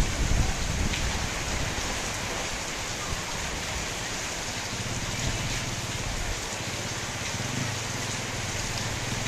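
Steady tropical-depression rain falling on corrugated metal roofs, an even wash of sound with a low, uneven rumble underneath that is strongest in the first moment.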